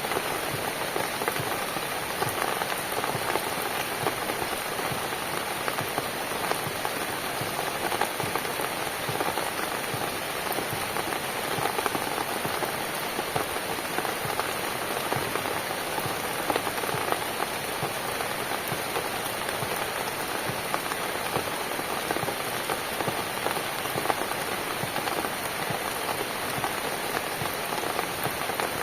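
Steady rain falling on a cabin: an even hiss with many separate drop hits.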